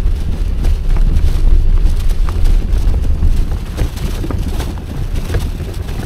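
Wind rumbling on the microphone of a loaded touring bicycle riding along a dirt road, with many scattered clicks and crunches from the tyres on the loose surface.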